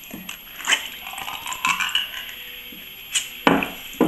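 Ring-pull lid of a tin of tuna being pulled open, with sharp metal clicks and short scraping sounds. Near the end the can is tipped over a ceramic mug and the tuna and its juice drop into it.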